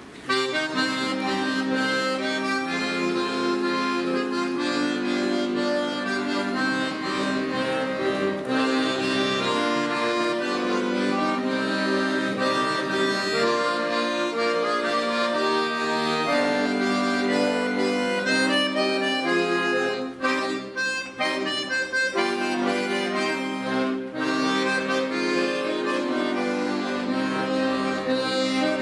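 An accordion ensemble playing a piece together: full, sustained chords and melody lines, with short breaks in the sound a little past two-thirds of the way through.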